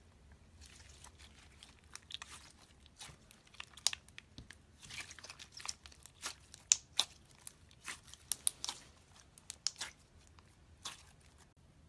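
Slime being squeezed and pressed by hand, giving a run of irregular crackles and pops.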